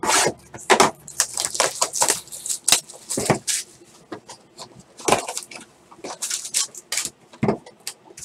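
A cardboard trading-card box being handled and opened by hand: irregular scrapes, taps and rustles of cardboard and packaging, with a few louder knocks spread through.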